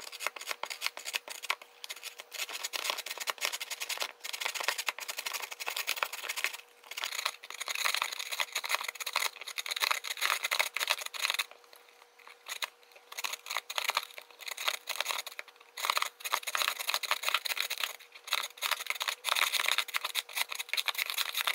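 A raw carrot being rubbed hard back and forth across the julienne blades of a plastic mandoline slicer, a fast run of rasping scrapes broken by a few short pauses, the longest about halfway through.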